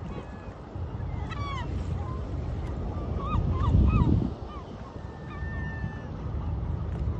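Seabirds giving many short, squealing calls over one another, over a low rumble of wind that swells about four seconds in.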